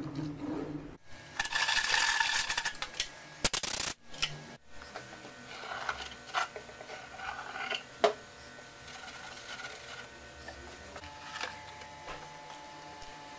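Handling sounds as PVA wood glue is squeezed from a plastic bottle into the gaps of an old wooden chest: a loud stretch of noise near the start, then scattered sharp clicks and light knocks on the wood.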